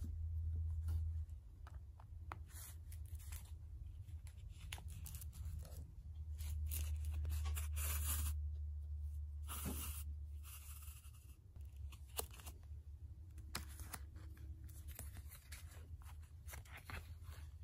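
Paper pages and a cover board being handled while thread is drawn through the sewing holes of a Coptic binding: rustling and scraping with scattered small clicks. A low hum sits underneath, stronger about six to ten seconds in.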